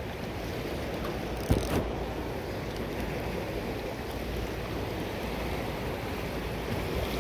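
Steady rush of fast-flowing river water, with wind buffeting the microphone and a short knock about one and a half seconds in.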